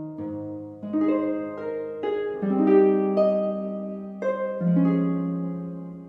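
Instrumental background music: a slow melody of plucked, harp-like notes and chords, each struck and left ringing, a new one roughly every half second to second.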